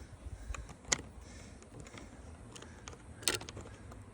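Light clicks and handling of the plastic housing and ribbon cable of a hot tub topside control as it is pressed into place: a sharp click about a second in and a louder one a little past three seconds.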